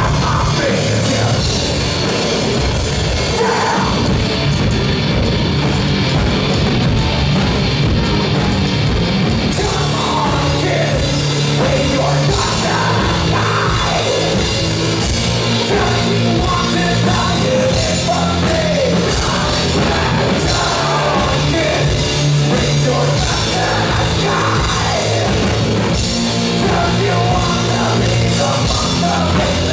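Live heavy rock band playing loud: drum kit, guitar and bass under a singer's vocals into a microphone.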